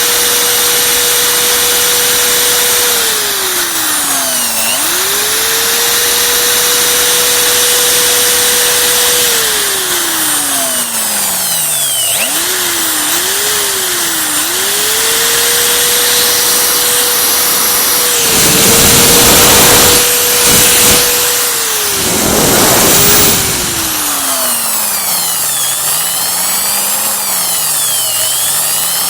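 Electric drill motor, its trigger squeezed and released over and over: the whine climbs quickly to a steady high pitch, holds for several seconds, then slides down as it slows. About two-thirds of the way through come two louder, harsh rasping spells. Near the end it runs slowly, its pitch wavering up and down.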